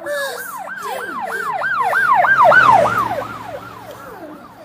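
Emergency vehicle siren sounding a fast rising-and-falling yelp, about three cycles a second, growing louder to a peak near the middle and then fading.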